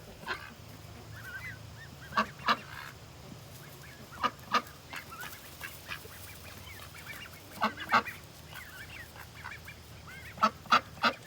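Adult ducks quacking in short, loud calls, two or three at a time every couple of seconds, with faint duckling peeps in between.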